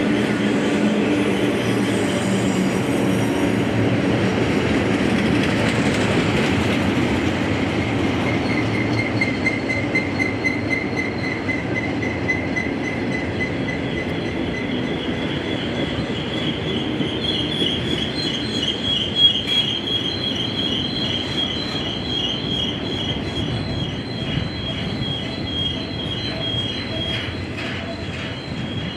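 BNSF freight train rolling past: a steady low rumble of the cars with high, wavering metal-on-metal wheel squeal that comes in several seconds in and grows louder past the middle.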